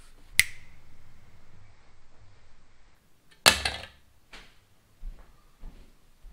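Knocks and thuds of packed gear being handled: a sharp click with a brief ringing tone, then a heavy thud about three and a half seconds in, followed by a few lighter knocks.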